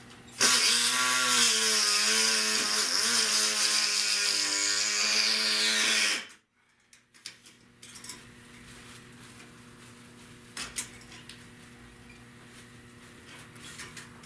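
A power saw cuts into rusted car-body sheet metal for about six seconds. Its motor pitch dips and wavers as the blade loads up, over a steady hiss. It stops abruptly, and a few light taps follow.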